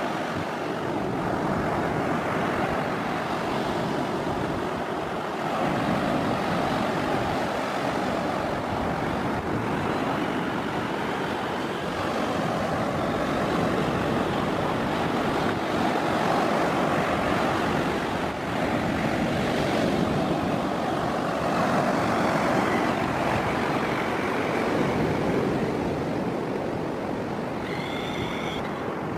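Ocean surf washing up the beach, with wind buffeting the microphone: a steady rushing noise that swells and eases.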